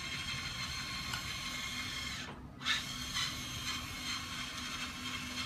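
The hydraulic pump and motors of a 1/14 scale LESU Komatsu PC360 RC excavator whine steadily as the upper body swings round. The whine dips briefly just after two seconds in, then comes back pulsing about twice a second.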